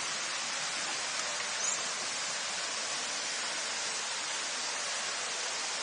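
Steady, even hiss of outdoor background noise, with a faint short high chirp about one and a half seconds in.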